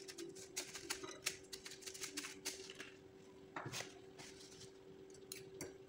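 Fried shallots shaken from a small glass jar onto a plate of noodles: a scatter of light ticks and clicks, dense at first and thinning out about halfway, over a faint steady hum.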